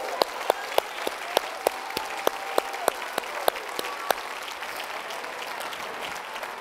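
Church congregation applauding. A sharp, steady clap beat of about three to four claps a second runs through the applause and stops about four seconds in, leaving looser, scattered applause.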